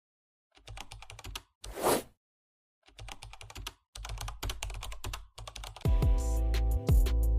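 Rapid computer-keyboard typing clicks in several short bursts, with a brief noisy rush about two seconds in. Music with a beat comes in near the end.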